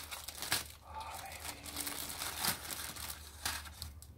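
Clear plastic bag crinkling and rustling in irregular crackles as hands pull a wrapped figure out of its styrofoam packaging tray.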